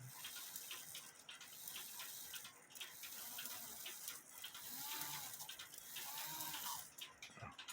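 Faint clicking of a Heco cuckoo clock movement being worked by hand, over a steady hiss.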